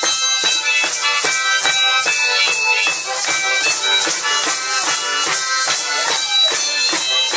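Live band music: a reedy wind instrument playing a melody over a steady percussion beat of about three strokes a second.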